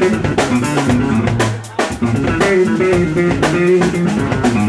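Live funk band playing a groove: drum kit with sharp snare strokes over a moving bass guitar line, with electric guitar and keyboard. The band drops out briefly a little under two seconds in, then the groove comes back in.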